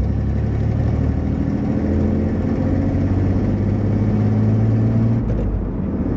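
Chevrolet Silverado K1500 pickup's throttle-body-injected engine running steadily in fifth gear at road speed, heard inside the cab. Its note dips and changes briefly near the end.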